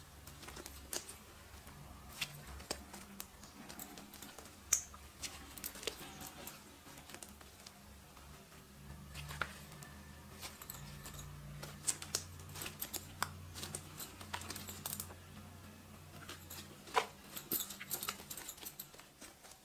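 Thick white shampoo-and-glue slime being stretched, folded and squeezed by hand, giving irregular sticky clicks and small pops.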